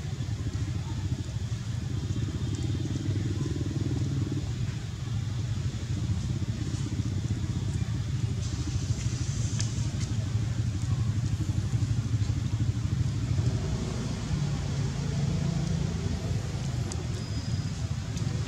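Steady low engine rumble, like a vehicle or motor running, with no clear start or stop.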